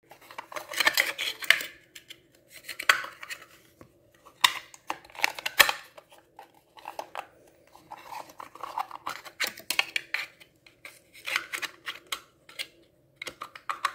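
Small plastic clicks, taps and scraping rubs as an HO scale model shipping container is handled and prised at, in irregular clusters with one sharper click a little past halfway.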